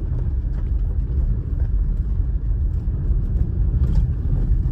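Toyota Highlander on a test drive: a steady low rumble of tyres and engine, driven to check that a suspension rattle from a loose bolt is gone.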